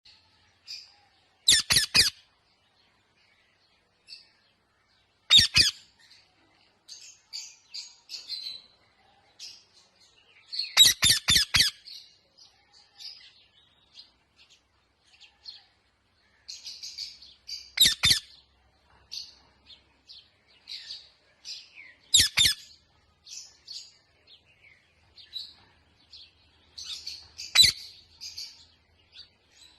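Parrot squawking: short bursts of two to four rapid harsh calls, six times, every four to six seconds, with softer high chirps and chatter in between.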